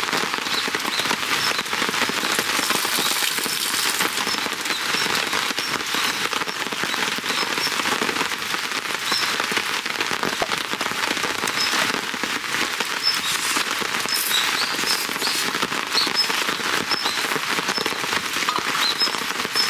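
Steady rain pattering on the tarp overhead, a dense hiss made of many fine drop ticks.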